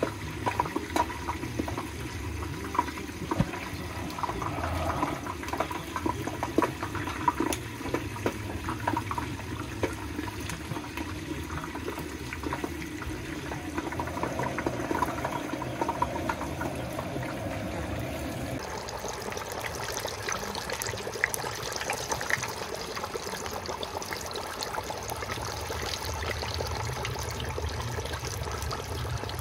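Whole turkey deep-frying in a pot of hot peanut oil on a propane burner: the oil bubbling and sizzling steadily, with small crackles. About two-thirds of the way through, the sizzle turns brighter and hissier.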